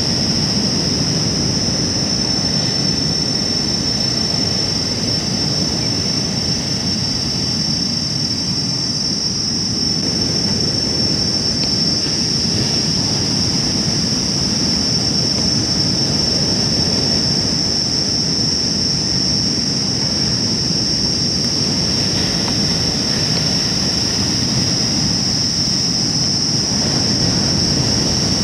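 Steady coastal ambience: an even low rush of surf and wind with a continuous high-pitched whine held over it.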